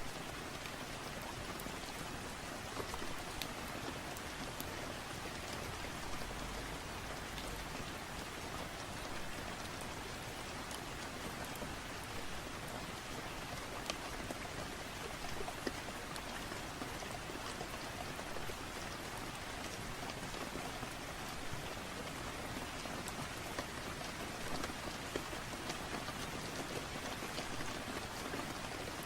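Steady rain falling, with scattered small clicks and pops of a crackling fireplace.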